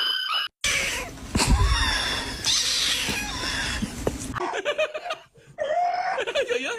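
A cat meowing in wavering calls during the second half, after a stretch of rustling noise with one heavy thump.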